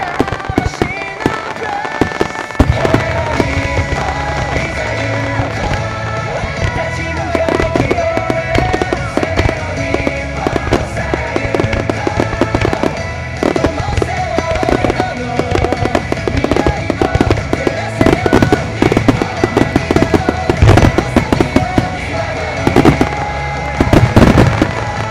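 An extra-large starmine: aerial fireworks shells bursting in rapid succession with sharp bangs and crackle, over music playing alongside the show. The loudest bangs come near the end.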